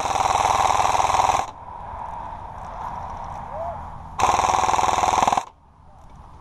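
Airsoft gun firing on full auto in two rapid bursts: one about a second and a half long at the start, then another of about a second near the end, with quieter sound between them.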